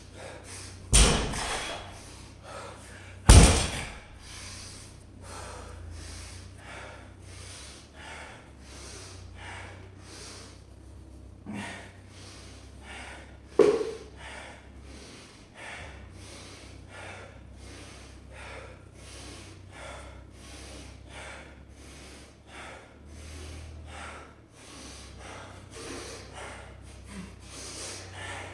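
A loaded barbell thudding down on the floor twice, about two seconds apart, at the end of a set of deadlifts. Then fast, heavy breathing, mostly through the nose, in quick even puffs as the lifter recovers. A smaller knock comes about halfway through.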